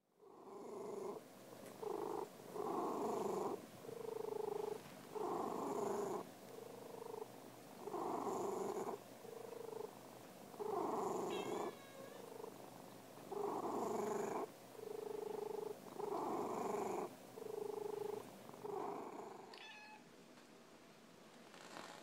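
Ginger tabby cat purring close up, the purr pulsing with its breathing, a fuller phase and a thinner steadier phase about every two and a half to three seconds. It fades out near the end.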